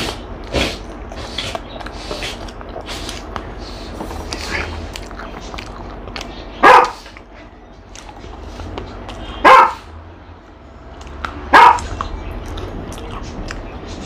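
A dog barking three times, each a single short bark, two to three seconds apart in the second half, over fainter clicks and eating sounds.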